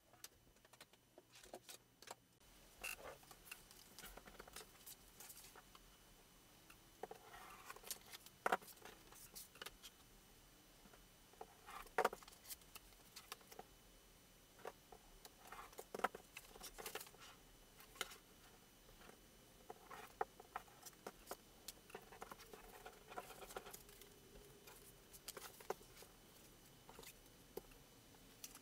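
Faint rustling and light tapping of cut wrapping-paper squares being shuffled and laid out by hand on a cutting mat, with scattered sharper clicks about 8, 12 and 16 seconds in.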